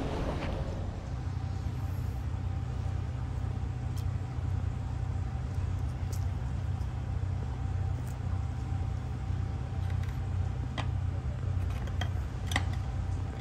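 Steady low machine hum, with a few light clicks near the end as squid pieces are handled on a plate.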